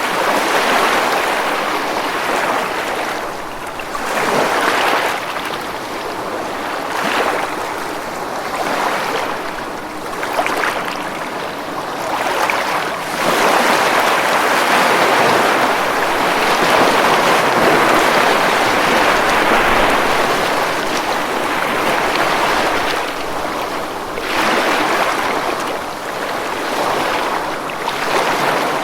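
Ocean waves breaking on a beach: a continuous wash of surf that swells and eases every few seconds, with one long, drawn-out surge through the middle.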